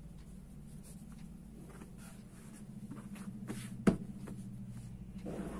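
Cotton fabric rustling and sliding on a tabletop as it is handled and smoothed flat by hand, over a steady low hum. One sharp knock a little under four seconds in.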